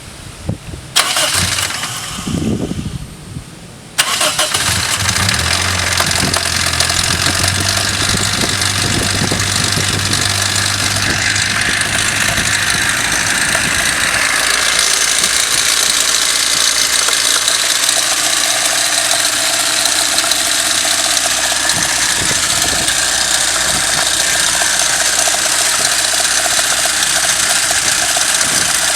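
Toyota 5A-FE four-cylinder petrol engine starting about four seconds in, then idling steadily with a knock that the owner puts down to play on the crankshaft timing-gear key behind the pulley.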